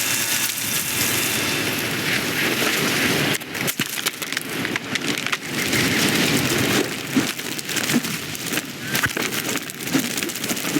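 Layered film sound effects: a dense rustling, crackling wash with many sharp clicks and snaps, and a brief high chirp near the end.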